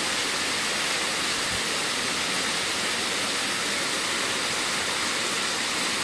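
Waterfall pouring down a rock face into a plunge pool: a steady rush of falling water.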